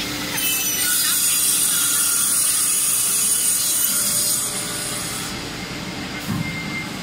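Saw on a SOSN SK1328A four-side edge cutting machine cutting the edge of a wooden door panel. It makes a loud hissing cut that starts just after the beginning and stops about four and a half seconds in, over the machine's steady running hum.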